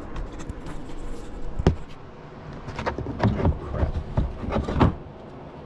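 Handling knocks on a cardboard-covered workbench: one sharp knock about a second and a half in, then a run of several knocks and thuds as a rubber sheet and a wooden board are moved into place by hand.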